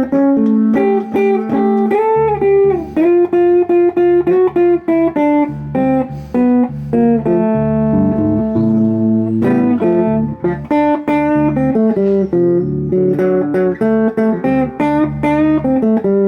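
Semi-hollow 335-style electric guitar played through a Fender Sidekick Reverb 25 solid-state practice amp, with a little gain, full bass and light reverb, giving a clean-to-crunchy blues practice tone. It plays picked single-note blues lines and double stops, with a few string bends.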